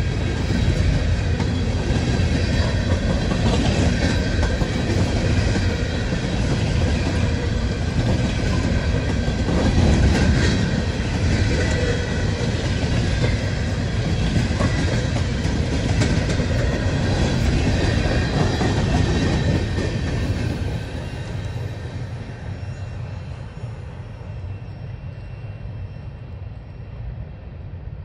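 Empty coal hopper cars rolling past on steel wheels, clicking over the rail joints with thin squealing tones above, dropping off noticeably about twenty seconds in.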